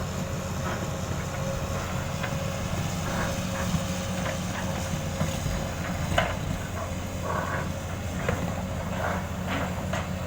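Excavator diesel engine running steadily, with scattered metallic clanks and knocks throughout.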